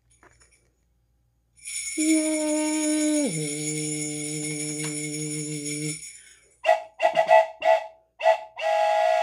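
A cheer of 'yay' held out and falling in pitch, over bright jingling. Then a small toy train whistle is blown in five or six short toots and one longer blast near the end, its several pitches sounding together like a train whistle.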